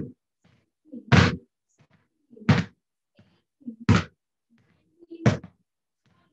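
Basketballs being dribbled on a hard floor: five bounces, about one every 1.3 seconds, each a sharp slap with a smaller thud just before it.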